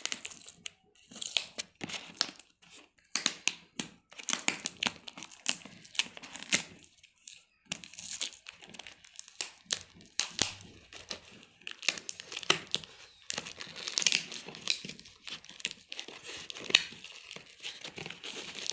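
Taped parcel packaging being torn open by hand: repeated ripping and crinkling in irregular bursts.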